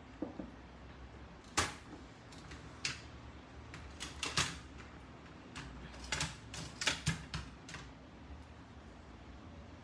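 Irregular sharp clicks and taps of painting supplies (a brush, metal paint tins) being picked up and set down on a wooden tabletop, about a dozen of them, starting about a second and a half in.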